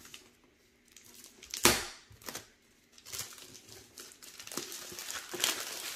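Clear plastic shrink wrap crinkling as it is peeled off a metal tin case by hand. There is a sharp crackle about a second and a half in, then continuous crinkling from about halfway.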